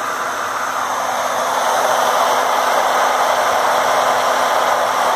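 Harbor Freight 65836 half-horsepower electric utility water pump running, a loud, steady motor hum and whine under the rush of water from its outlet. It grows a little louder about two seconds in.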